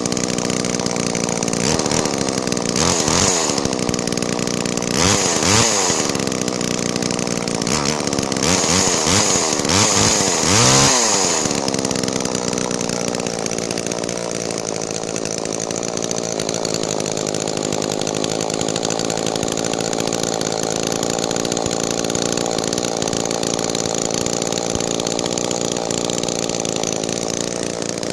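Two-stroke engine of a 1976 Homelite chainsaw revved up and back down about five times in quick succession, then settling to a steady idle about twelve seconds in.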